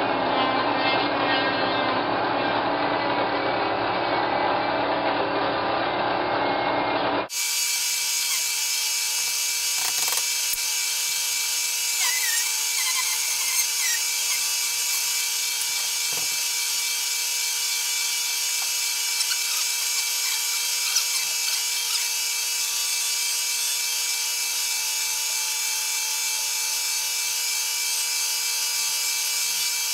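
Milling machine running, its cutter working into a block of wood. About seven seconds in the sound changes abruptly to a brighter, steady whine with a few faint clicks.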